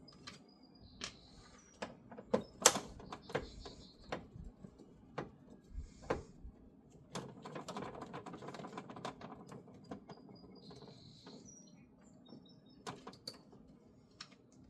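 Scattered clicks and knocks of a hand tool and plastic trim as screws are backed out of a pickup's jump-seat assembly. There is a rustling, scraping stretch in the middle and a few short high squeaks.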